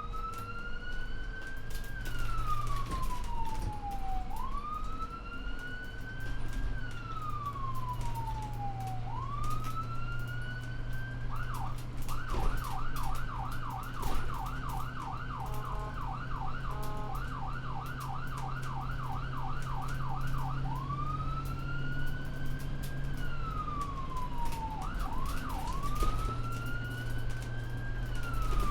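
Ambulance siren heard from inside the vehicle over a steady low engine drone. It wails, rising and falling slowly about every four to five seconds, switches near the middle to a fast yelp for about nine seconds, then goes back to the wail, with a quick double chirp shortly before the end.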